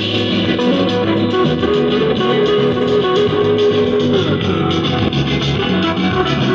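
A song with guitar played loud through a loudspeaker driven by an MB Collection single-channel mono amplifier board with 5200 output transistors, turned up to full volume for a sound test.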